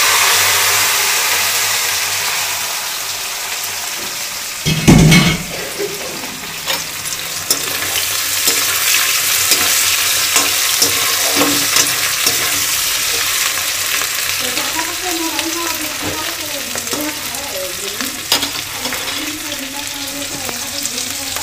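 Chunks of elephant foot yam frying in hot oil in a steel kadhai, a steady sizzle that is loudest as the pieces go in at the start. A perforated steel skimmer stirs and scrapes through them, with a heavy metal clunk about five seconds in and sharp clicks after it.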